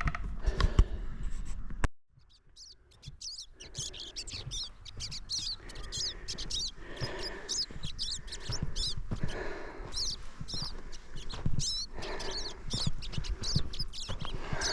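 Small birds chirping, many short high chirps in quick succession, starting after the sound cuts out abruptly about two seconds in.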